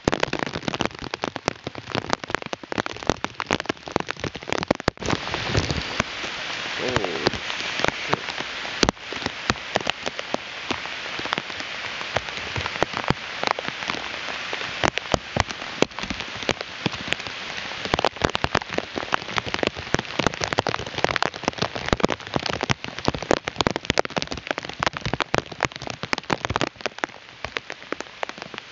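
Heavy downpour of rain pattering on hard surfaces, with a steady hiss and many sharp drop hits close by.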